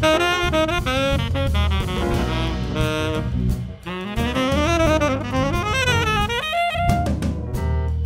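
Live small-group jazz: a saxophone solos in fast running lines over bass and drums, holding one long note a little past halfway before running on.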